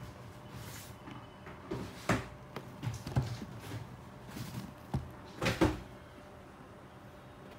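Handling noise from an Air Jordan 13 sneaker being turned and pressed in the hand right by the microphone: scattered soft knocks and rustles of leather and laces against the fingers, the loudest pair about five and a half seconds in.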